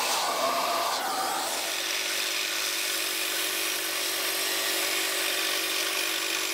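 Belt sander running steadily, grinding the rust off an iron ax head held against its belt.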